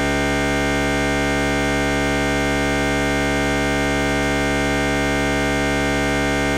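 A steady, unchanging electronic buzz made of many evenly spaced tones held at one pitch, with no rhythm and no change in level.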